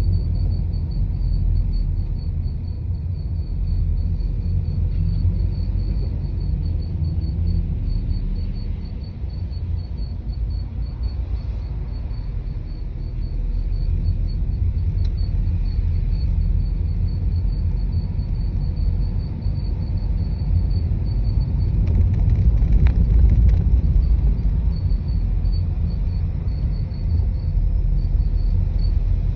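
Cabin noise of a BMW 218d Active Tourer at low speed: a steady road rumble with a faint, high-pitched chirp repeating a few times a second. This is the abnormal noise that shows up at 20–40 km/h from around the front passenger-side wheel, which a dealer could not reproduce. About three-quarters through there is a louder, rougher stretch with a few knocks.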